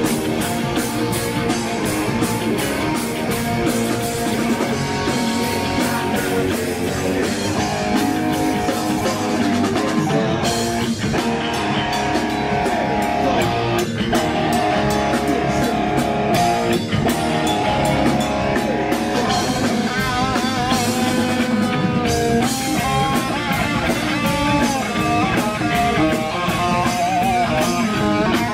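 Hard rock band playing live: distorted electric guitars over a steadily hit drum kit, with a lead line that bends and wavers in pitch from about twenty seconds in.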